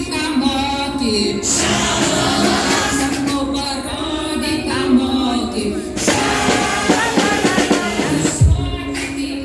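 Music with singing and a drum beat, with a couple of low thumps near the end.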